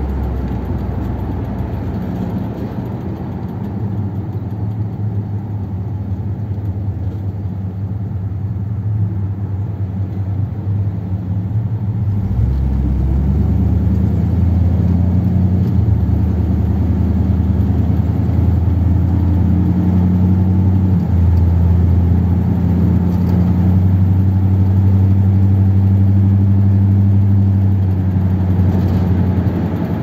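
1957 Ford Thunderbird's Y-block V8 heard from inside the open cabin on the road, running steadily at low speed. From about 13 seconds in it gets louder as the car picks up speed.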